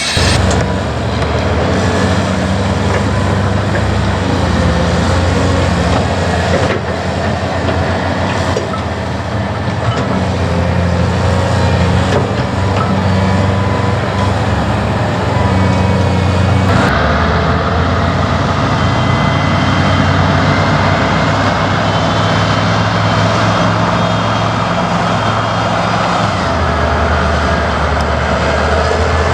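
Caterpillar tracked construction machine at work, its diesel engine running steadily under a dense mechanical clatter. The sound changes abruptly a little past halfway, to a different engine note with a thin whine on top.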